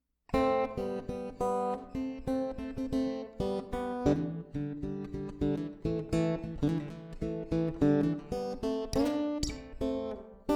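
Acoustic guitar music: a run of strummed and plucked chords with an even rhythm, starting just after the opening.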